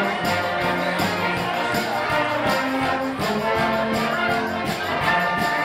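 Brass band music, wind instruments playing sustained notes over a steady beat.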